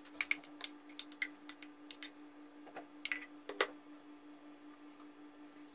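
Soft clicks and taps of a silicone spatula scraping thick chocolate cream from a plastic chopper bowl and knocking against a glass dessert cup, the loudest taps about three seconds in. A faint steady hum runs underneath.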